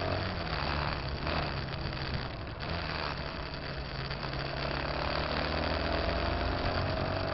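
Moving vehicle's engine running with road and wind noise: a steady low hum whose pitch shifts slightly, with a thin tone that rises a little near the end.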